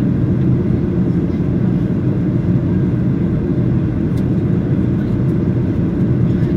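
Steady, low cabin noise inside a Boeing 737-800 in flight: the sound of its CFM56-7B engines and the airflow along the fuselage, unchanging throughout.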